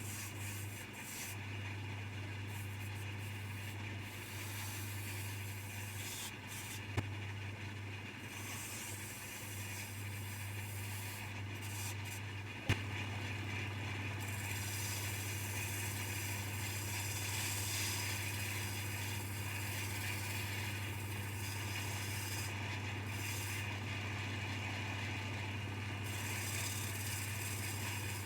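A Coronet 1 wood lathe running with a steady hum while a turning tool cuts the spinning wood, with scraping that comes and goes. There are two sharp clicks, the second about halfway through, after which the sound is a little louder.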